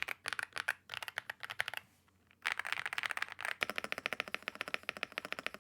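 Fast typing on a budget custom mechanical keyboard with a plastic case, fully stock: quick bursts of keystrokes, a short pause about two seconds in, then a fast unbroken run of keystrokes. The clacks have the hollow sound of the plastic case and unmodded stabilisers.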